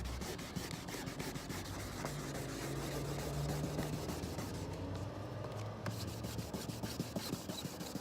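Wet sanding of boat gel coat with 600-grit wet sandpaper: quick, even back-and-forth rubbing strokes, the paper scraping over the wet surface.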